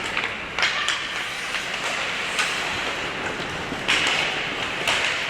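Ice hockey play in an arena: sharp clacks of sticks and puck scattered through, over a steady rink hubbub, with a louder scrape of skates on the ice about four seconds in.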